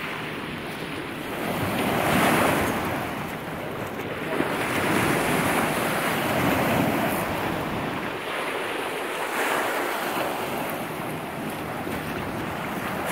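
Small lake waves breaking and washing up on a sandy, pebbly shore, swelling and falling every few seconds, with wind buffeting the microphone.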